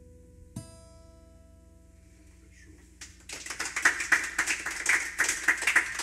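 A last acoustic-guitar note rings out and slowly fades as a song ends. About halfway through, an audience starts clapping, dense and louder than the guitar.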